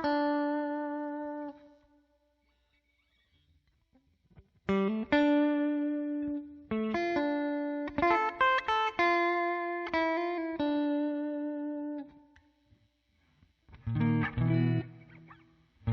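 Telecaster-style electric guitar playing single notes that ring out. A note fades out, and after a pause of a few seconds comes a phrase of notes. Chords are strummed near the end.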